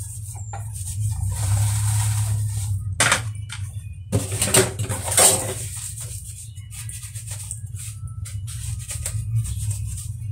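Washing dishes by hand at a stainless steel sink: a plastic container scrubbed with a soapy sponge, with rubbing, small knocks and dripping water, and a louder splash of water about four and a half seconds in. A steady low hum runs underneath.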